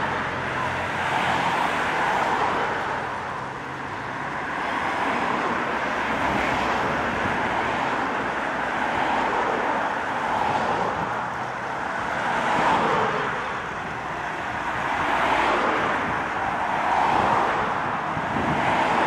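Convoy of race support cars passing one after another on a town street, the engine and tyre noise swelling and fading as each car goes by.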